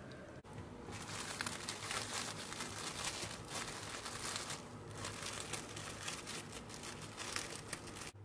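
Plastic cling film crinkling and crackling as it is pulled and folded over by hand. It starts about a second in, with a brief lull around the middle.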